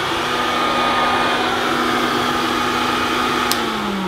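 Vintage Hoover Dustette Model 2614B mains-powered hand-held vacuum cleaner running steadily, a motor whine over rushing air. About three and a half seconds in there is a single click, and the motor then begins to wind down, its pitch falling.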